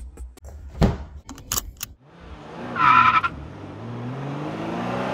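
A few sharp clicks, then a car accelerating from about two seconds in, its engine pitch rising, with a brief tire squeal about three seconds in.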